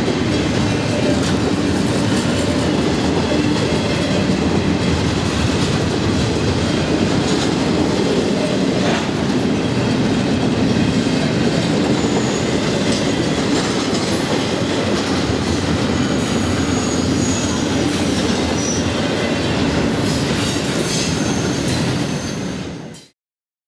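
Double-stack intermodal freight train's stack cars rolling past: a steady rumble of steel wheels on rail with clickety-clack over the rail joints, and a few faint, brief wheel squeals in the second half. The sound drops away and cuts off shortly before the end.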